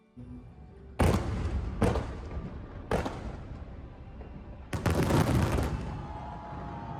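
Fireworks exploding: sharp booms about a second in, just before two seconds and at three seconds, then a longer burst of rapid crackling bangs lasting about a second near the middle, each fading off afterwards.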